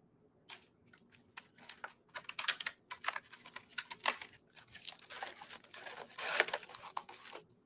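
Handling noise: irregular crinkling, rustling and small clicks as something is handled, densest about five to seven seconds in.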